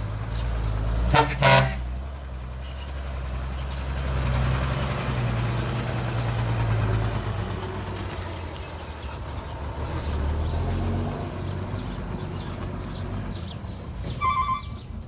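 Heavy diesel machinery running with a steady low rumble. A truck horn gives a short double toot about a second in, and a reversing alarm starts beeping near the end.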